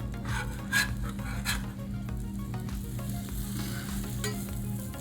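Eggs sizzling on a Blackstone flat-top griddle while an omelette is worked and rolled, with a few short scrapes, the loudest just under a second in.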